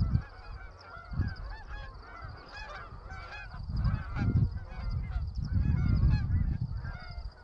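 A flock of flying geese honking, many short calls overlapping one after another, with low rumbling on the microphone through the middle.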